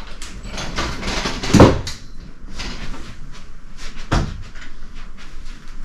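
Knocks and thumps of a large cardboard shipping box being handled and moved, with a loud thump about a second and a half in and another around four seconds.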